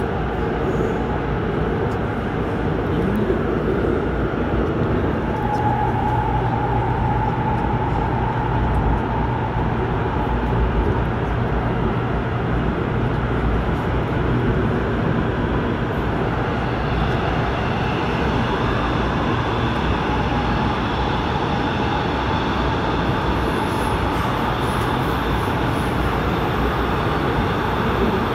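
AREX all-stop commuter train running, heard from on board: a steady rumble of wheels on rail. A low hum and a whining tone come in about five seconds in, and higher whining tones join from about two-thirds of the way through.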